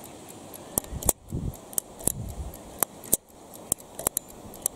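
Sharp, irregularly spaced clicks, about eight of them, from an AEG electromechanical time switch's contact mechanism and fibre star-wheel actuators as its gear train is worked by hand.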